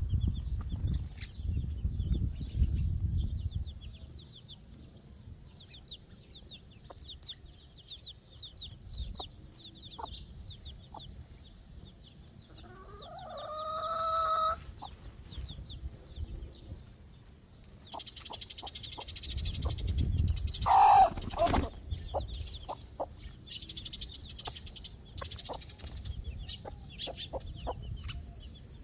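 Hens clucking among their chicks, with a drawn-out rising hen call about halfway through and a louder, sharper squawk about two-thirds in. Rapid high chirping of small birds carries on underneath.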